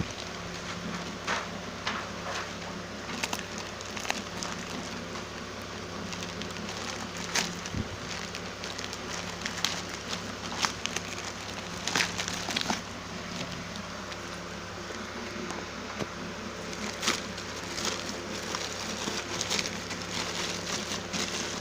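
Irregular crackling and clicking of packaging being handled while a phone is unboxed, over a steady background hum.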